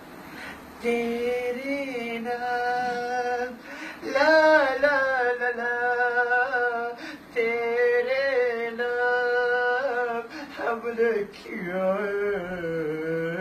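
A man singing unaccompanied in a Hindi film-song style, holding long wavering notes in phrases with short breaths between them.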